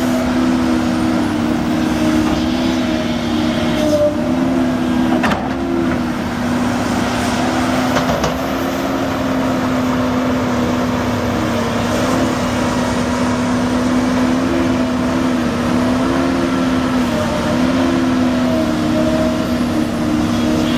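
A heavy construction machine's engine running steadily, its pitch stepping slightly up and down a few times, with one sharp knock about five seconds in.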